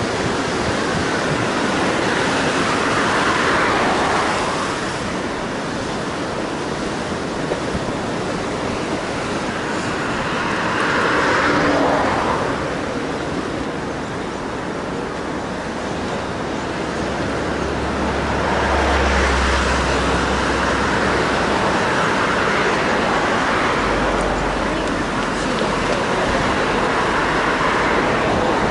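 Cars passing one after another on a coastal bridge road, each a slow rising and falling rush of tyre and engine noise, over a steady wash of wind and surf. A low wind rumble on the microphone comes in during the second half.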